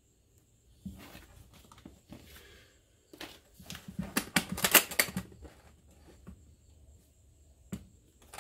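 Hands handling a plastic hard-shell gun safe and a paper sheet on a wooden bench: rustling and scattered clicks, with a dense run of rapid clicks and knocks about three to five seconds in and a single click near the end.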